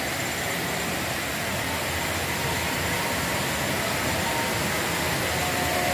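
Steady rushing of water at a river weir, an even noise with no separate splashes or knocks standing out.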